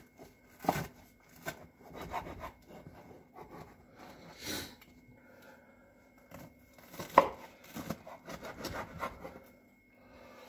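Kitchen knife cutting through toasted sandwiches on a wooden chopping board: crunching and scraping through the toast, with sharp knocks as the blade meets the board, the loudest about a second in and again about seven seconds in.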